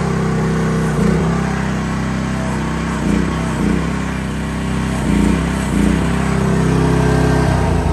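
Small Briggs & Stratton gasoline engine of a mini excavator running steadily at speed, its note briefly swelling several times.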